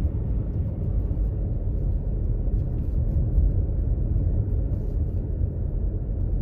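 Steady low rumbling noise that starts abruptly and keeps on evenly, with no distinct knocks or tones.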